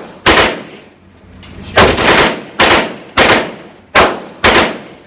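Gunshots fired one at a time in quick succession, about six or seven in five seconds at an uneven pace, each loud crack trailing off in echo.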